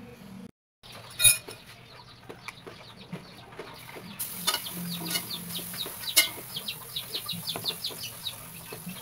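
Stainless steel wok and utensils clanking, with two sharp metal knocks, about a second in and about six seconds in, and lighter clicks between. From about four seconds, birds chirp rapidly in the background with quick, high, falling chirps.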